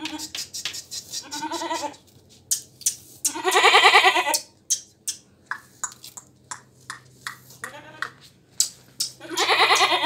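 Goat bleating three times: a fainter call about a second in, a long loud quavering bleat in the middle, and another near the end. Short sharp clicks sound between the calls.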